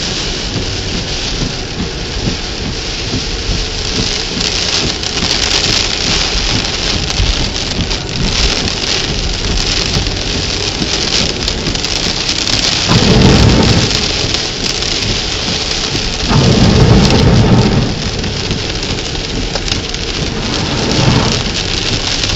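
Heavy rain beating steadily on a car, with low rumbling swells rising over it about halfway through, again a few seconds later, and briefly near the end.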